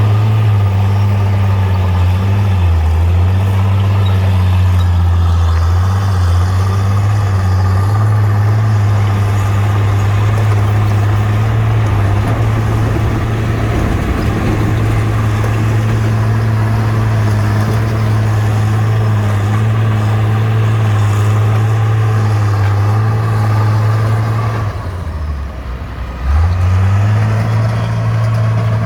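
Bulldozer's diesel engine running steadily under work. About 25 seconds in it drops briefly in pitch and loudness, then picks back up.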